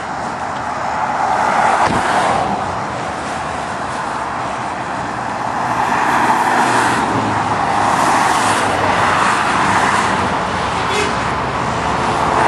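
Road traffic noise from vehicles going past, swelling as they pass about two seconds in and again through the middle of the stretch.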